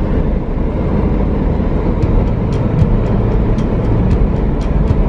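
Steady low rumble of a car on the move: engine and road noise. A light rhythmic ticking, about three to four ticks a second, starts about two seconds in.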